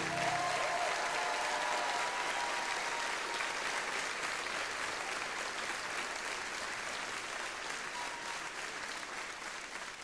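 Theatre audience applauding, the clapping slowly fading toward the end.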